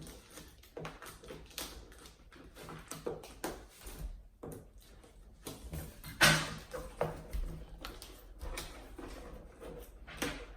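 A shipping package being opened by hand: irregular clicks, taps and rustles of cardboard and packing, with a louder knock about six seconds in.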